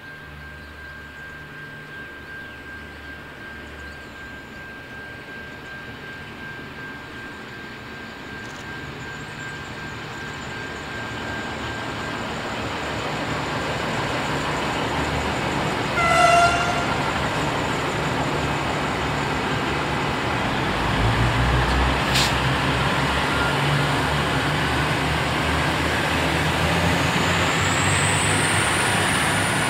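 V/Line VLocity diesel multiple unit, two sets coupled, approaching and passing at speed: a rumble of engines and wheels on rail that grows steadily louder, with one short horn toot about halfway through as it draws near.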